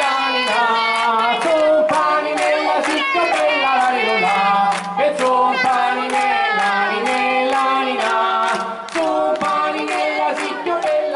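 Several voices singing a traditional Salentine folk song, with a crowd clapping along in time, about two claps a second.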